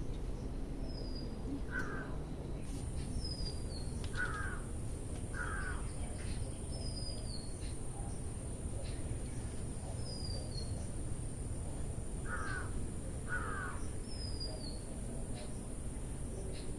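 Birds calling: a few short harsh calls, some in pairs, and a short falling whistle repeated about every two seconds, over a steady low rumble.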